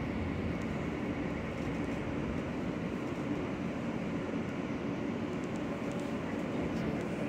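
A New York City Transit R143 subway car in motion, heard from inside the car: a steady, even rumble of wheels on rail and car noise.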